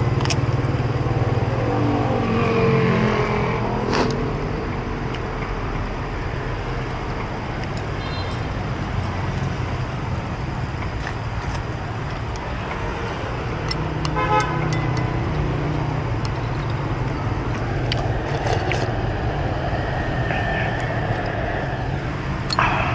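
Busy street traffic: engines running close by, with a horn tooting in short repeated beeps around the middle. Now and then a light clink of a metal spoon or chopsticks against a ceramic soup bowl.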